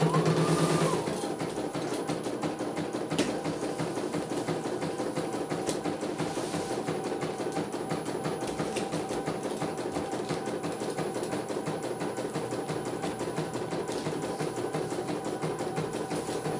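CNY E900 computerized embroidery machine stitching a design: a fast, even run of needle strokes over a steady motor hum, with a short rising-and-falling whine in the first second.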